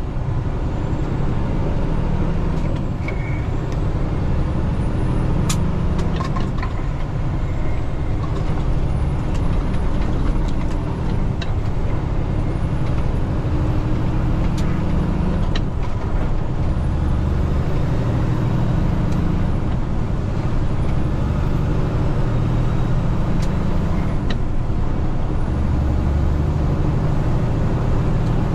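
Semi truck engine running, heard from inside the cab of a Peterbilt 579 while driving, its low drone swelling and easing as the 13-speed manual is shifted through the gears. A few sharp clicks stand out over it.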